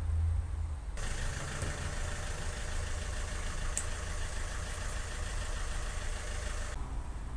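Vauxhall Movano's 2.2 DTi diesel engine idling with a steady low rumble. A steady hiss joins about a second in and stops near the end.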